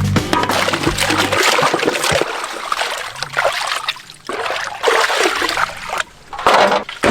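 Liquid trickling and splashing in uneven surges, over the tail of background music that ends about a second in.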